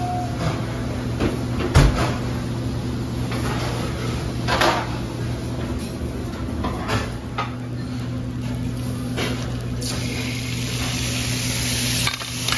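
Several separate knocks and clatters, the loudest about two seconds in, over a steady low hum; a hiss builds near the end.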